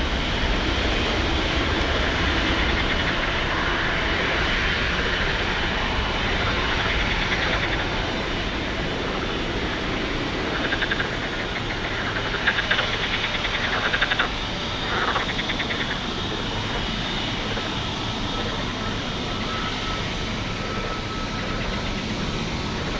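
Airbus A321neo's jet engines on departure: a steady roar that slowly fades, with a few short bumps in loudness in the middle.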